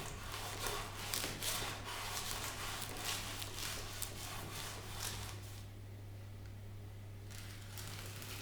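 Scratchy rubbing and scraping by hand, a quick run of short strokes that stops about five and a half seconds in, over a steady low hum.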